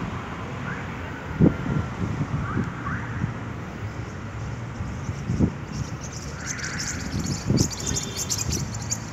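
Wind buffeting the phone's microphone outdoors, with a few gusts that thump, and several short rising bird chirps. A high crackling hiss comes in after about six seconds.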